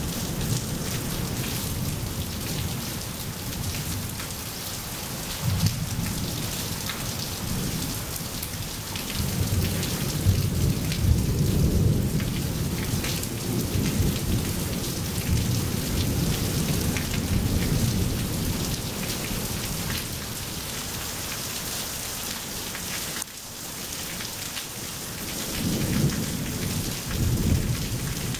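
Steady rain falling on wet pavement, with low rolling thunder swelling up several times.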